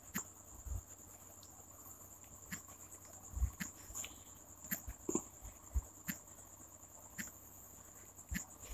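Light taps and clicks from typing letters on a smartphone's on-screen keyboard, about a dozen spaced irregularly, over a faint steady high-pitched whine.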